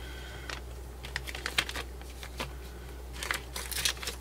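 Small plastic bag crinkling as it is handled, with scattered light clicks; the crinkling is densest near the end.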